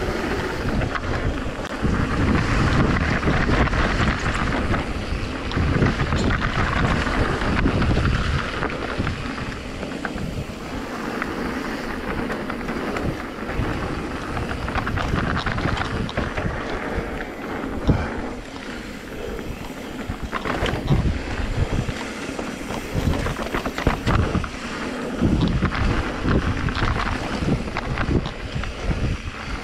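Wind buffeting the action camera's microphone as a mountain bike rolls fast down a dirt singletrack, with tyre rumble and the odd knock from the bike, the sharpest about 18 seconds in.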